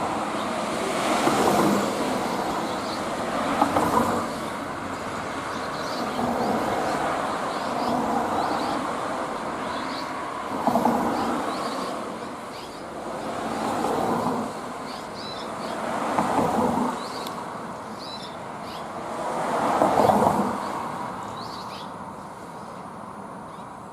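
Road traffic, cars passing one after another, each swelling and fading over a second or two, with short high bird chirps over it.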